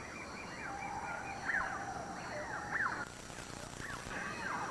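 Chorus of wild animal calls: many short whistled notes that swoop up and down in pitch and overlap one another.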